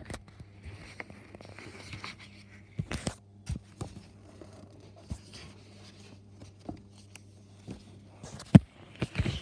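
Handling noise: scattered knocks, clicks and scrapes over a low steady hum, with a cluster about three seconds in and the sharpest knock near the end.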